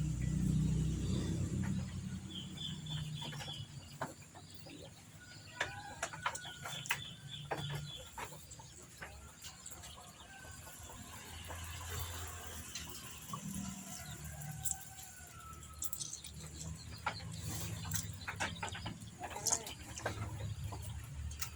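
Chickens clucking and birds chirping in the background, over scattered small clicks and knocks of hands working at a kitchen bench.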